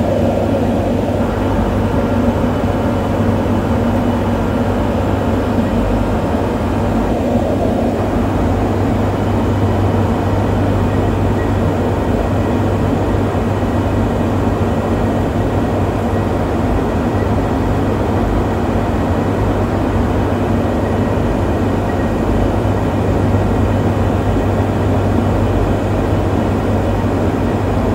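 Steady flight-deck noise of an airliner descending on approach: engine drone with a constant low hum under rushing airflow, heard inside the cockpit.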